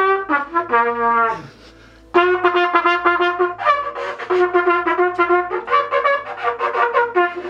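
A trumpet played solo: a short phrase that ends in a falling slide, a brief pause, then a long run of quick, separately tongued notes that keep returning to one low note.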